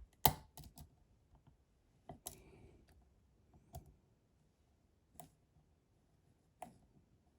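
Sparse sharp clicks and light scrapes from a lock pick and tension tool working in a Medeco lock's keyway, about seven clicks spread out, the first the loudest. The lock is being picked and is just about to open.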